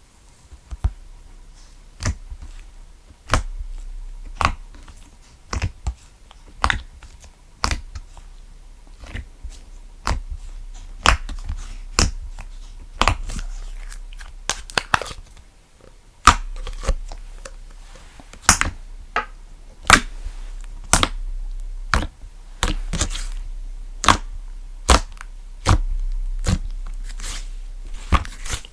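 Slime being played with by hand, giving irregular sharp pops and snaps about once or twice a second over a low hum.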